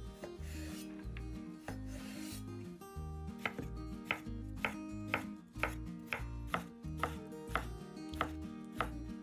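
Knife cutting through food onto a cutting board in regular strokes, about two a second, starting about three seconds in; before that, two short scraping strokes. Background music plays throughout.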